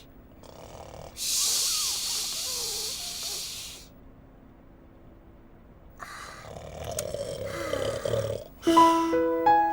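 Dipsy the Teletubby snoring: a long hissing breath, a pause, then a lower, rougher snore. Near the end a bright keyboard tune of stepped notes begins.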